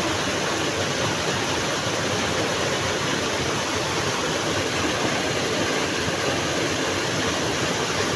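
River water running steadily over rocks, as an even rushing noise.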